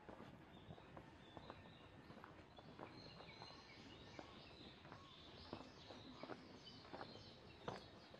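Quiet garden ambience: faint birds chirping in short high calls, with scattered soft clicks.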